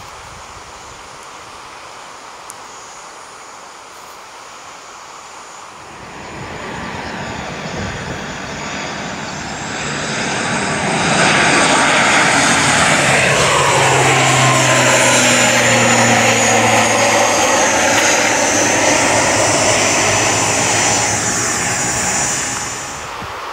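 ATR 72-600 turboprop airliner flying over unseen in thick fog after a missed approach, climbing away instead of landing. Its propeller drone builds from about six seconds in, stays loud with a steady low tone and a sweeping whoosh as it passes over, then drops away sharply near the end.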